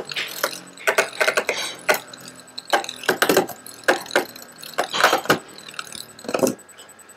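Metal Fusion Beyblade spinning tops clashing and clattering in a plastic stadium: a run of irregular sharp clacks and knocks, about a dozen, some in quick pairs.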